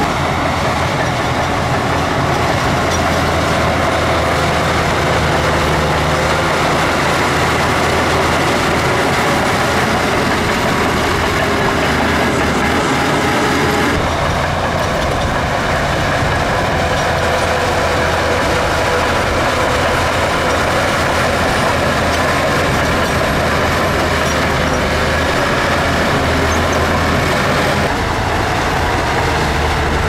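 Shantui DH17B2 crawler bulldozer's diesel engine running loud and steady as the machine works, its sound shifting about halfway through and again near the end.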